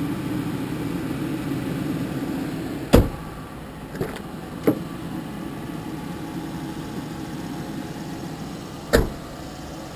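Police car's engine idling steadily. A sharp clunk of a car door shutting comes about three seconds in, with two lighter knocks just after it and another loud clunk near the end. The hum is a little quieter after the first clunk.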